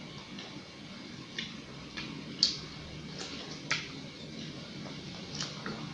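Faint, scattered clicks and smacks of a child eating rice with her fingers and chewing, about seven of them spaced irregularly.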